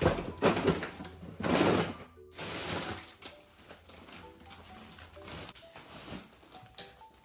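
Plastic rubbish bag rustling and crackling as a full bin bag is pulled out of the bin, in loud bursts over the first two seconds. After that, soft background music with scattered light notes.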